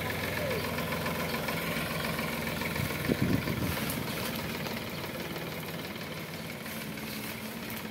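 Sonalika tractor diesel engines running with a steady clatter while one tractor tows the other on a rope. A short louder burst comes about three seconds in, and the sound eases a little afterwards.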